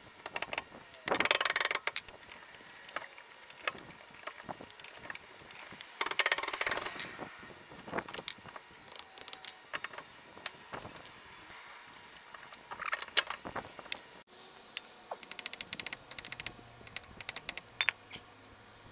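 Brake caliper and pads being worked free by gloved hands with a screwdriver: scattered metal clinks and clicks, with two louder scraping rushes about a second in and around six seconds.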